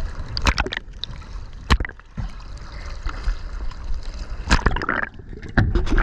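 Seawater sloshing and splashing around a camera held at the waterline against a boat hull, with several sudden sharp splashes and knocks.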